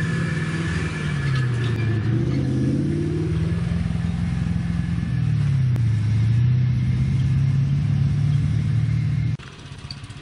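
Off-road 4x4's engine working along a rough track, its revs falling and rising several times. The sound stops abruptly near the end.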